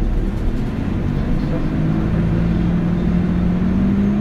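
Nissan Diesel KL-UA272KAM city bus heard from inside while running: the diesel engine drone rises gradually in pitch as the bus picks up speed, over low road rumble.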